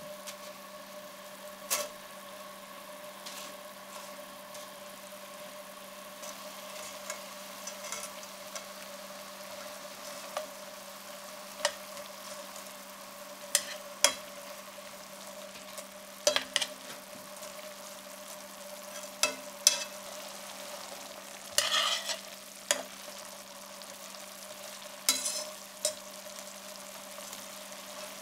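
Dried spaghetti cooking in bubbling white wine in a stainless steel frying pan: a soft steady sizzling hiss, broken about a dozen times by sharp clicks and scrapes of metal tongs against the pan as the strands are pushed down. A steady hum runs underneath.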